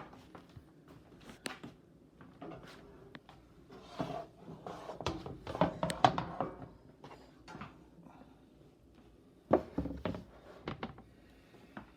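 Scattered knocks and clunks of a heavy stockpot full of water being handled and set down on a stovetop, the loudest knocks about halfway and about three-quarters of the way through.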